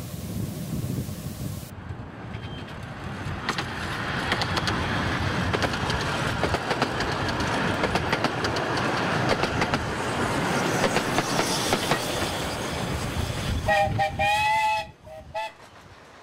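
A 15-inch gauge steam train running along the track, its wheels clicking over the rail joints. Near the end a whistle sounds in a couple of short blasts, then the running noise drops away.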